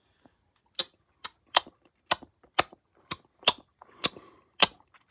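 A person clicking their tongue with the mouth, about ten sharp clicks at roughly two a second, fairly regular.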